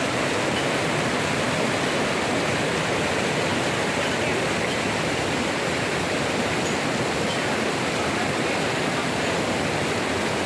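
Waterfall pouring onto rocks, a steady, even rush of falling water.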